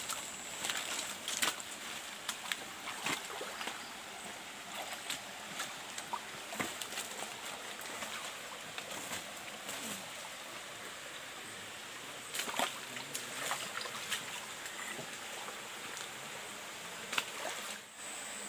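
Small stream running with a steady wash, under scattered footsteps on stones and rustling of bamboo leaves as someone picks their way along the streambed.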